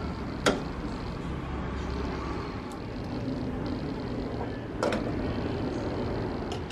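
A metal ladle clinks once, sharply, against a stainless steel soup pot, and a little under five seconds in the pot's stainless steel lid is set on with a short clatter, over a steady low background noise.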